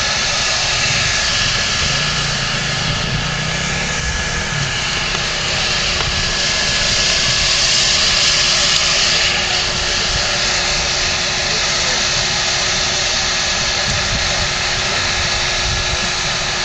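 Steam locomotive No. 3254 standing at rest, giving a steady loud hiss of escaping steam, which swells briefly about halfway through.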